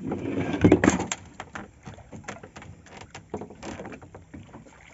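A hooked snook splashing hard at the surface beside the boat in the first second or so, followed by lighter splashes and knocks as it is scooped up in a landing net.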